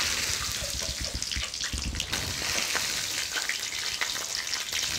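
Hot oil with fried Sichuan peppercorns and dried chillies poured over sliced pork kidney, vegetables and sauce, sizzling and crackling steadily as it hits the wet food.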